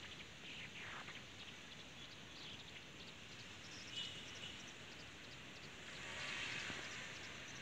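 Faint noise of a passenger train rolling slowly alongside a station platform, heard from an open carriage window, with a few faint high squeaks and a brief rise of hissing about six seconds in.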